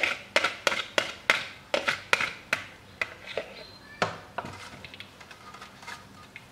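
Wire whisk clicking and scraping against a metal mesh strainer as a thin custard mixture is worked through it. The strokes come quickly, about three a second, then slow and soften from about four seconds in.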